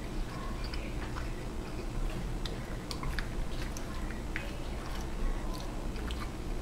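A man chewing a mouthful of soft pretzel, with scattered small clicks and smacks of the mouth.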